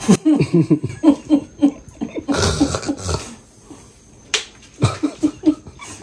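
A woman laughing in quick repeated "ha-ha" bursts, with a short rushing noise about halfway through and another short run of laughter near the end.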